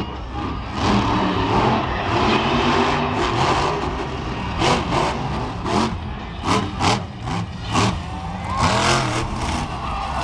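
Monster truck's supercharged V8 engine revving hard in repeated short surges under a steady low rumble.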